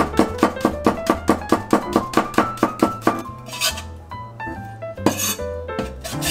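Chef's knife chopping green onions on a bamboo cutting board in quick, even strokes, about four or five a second, stopping about three seconds in; then the knife scrapes the sliced onion across the board, twice. Background music with a plucked melody and bass plays throughout.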